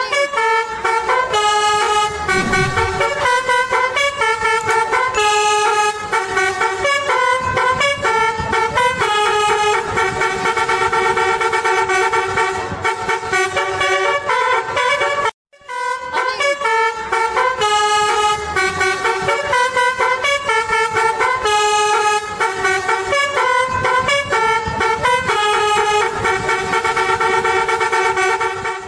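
Indonesian 'telolet' multi-tone bus horn playing a melody of quick changing notes, the same tune played twice with a brief break about halfway.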